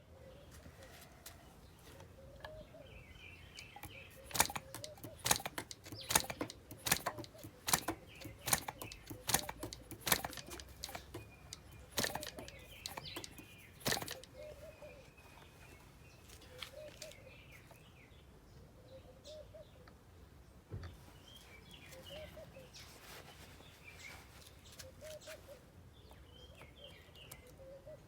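Birds calling outdoors: a low call repeated every couple of seconds and higher chirps. For about ten seconds, starting some four seconds in, a run of sharp clicks and taps sounds over them.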